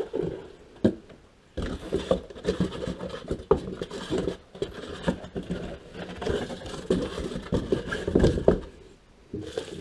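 Cardboard packaging being pulled out and handled: irregular scraping and rustling of cardboard inserts with scattered knocks, including a thump about a second in and a louder burst of handling near the end.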